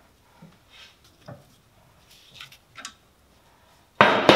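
Faint clicks and taps of metal brake parts being handled, then a sudden loud metal clank near the end that rings on briefly.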